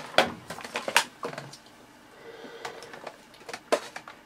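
Hard plastic clicks and knocks from handling the body and ducting of a Dyson Animal Ball 2 upright vacuum as it is reclined and its blockage-release port opened: a handful of separate sharp clicks, the loudest about a second in.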